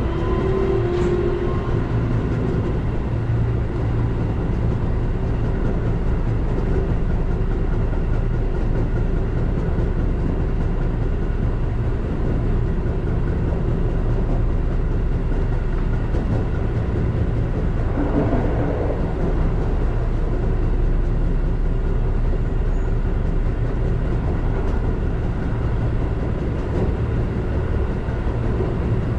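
Keihan Katano Line electric commuter train running along the line, heard from inside the front of the train: a steady hum of the traction motors and wheels on the rails.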